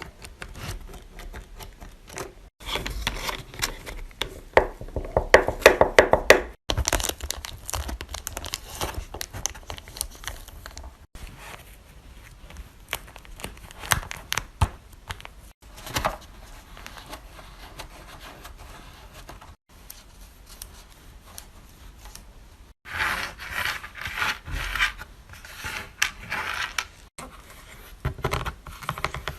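Fidget toys being handled close to the microphone: dense crinkling, clicking and scraping, in several short clips with abrupt cuts between them.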